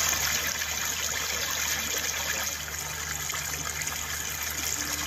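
Shallow floodwater running across a paved road, a steady rush of water with a low steady hum underneath.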